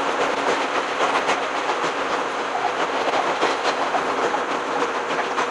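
Running noise of an Ohmi Railway 100-series electric train (a former Seibu 101-series set): a steady rumble with wheels clicking over rail joints in rapid succession, sped up six times.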